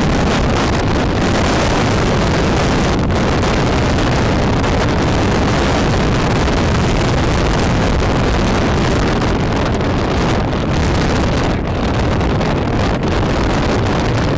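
Loud, steady wind buffeting the camera's microphone while filming from a moving car.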